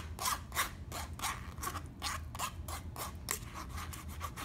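Metal spoon scraping pancake batter through a fine wire-mesh strainer: repeated short scraping strokes, about two to three a second.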